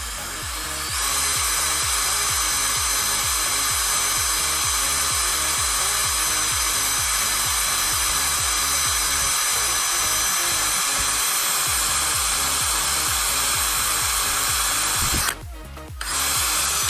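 An 18-volt cordless drill runs steadily at speed with its bit against an iPhone's screen, making only a small hole. It cuts out briefly near the end and starts again. Background music with a steady beat plays underneath.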